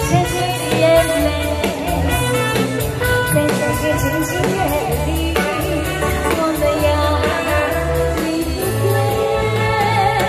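A woman singing a Taiwanese pop song over a backing track with a steady bass beat, played through a PA system.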